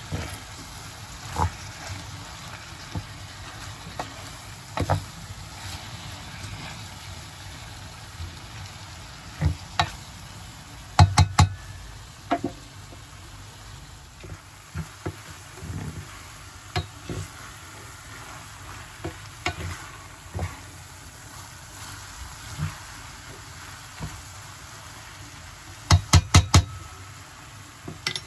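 Food frying in hot oil in a pan, a steady sizzle, while a utensil stirs and knocks against the pan. Scattered single knocks, plus two quick runs of about four taps, about 11 seconds in and again near the end.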